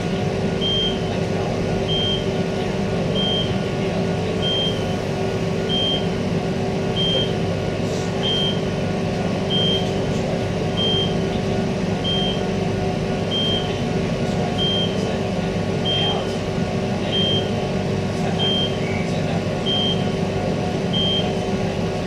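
Interior of a stationary Queensland Rail electric multiple unit: a steady electric hum from the train's equipment, with a short high beep repeating about every 1.3 seconds. The beep is the door-release signal while the push-button doors are enabled at the platform.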